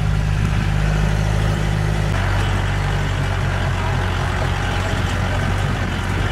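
A vehicle's engine running steadily, heard from inside the vehicle, with road noise. Its note drops about two seconds in.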